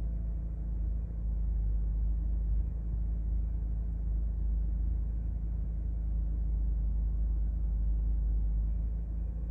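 2011 BMW 328i xDrive wagon's 3.0-litre straight-six idling steadily at about 1,100 rpm, the raised idle of a cold start, heard from inside the cabin as a low drone.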